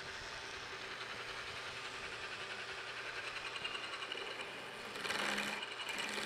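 Precision Matthews PM-727 milling machine's spindle running with a drill bit in the chuck, a steady machine whir. About five seconds in the drill is fed into the vise jaw to drill a screw hole, and the sound grows louder.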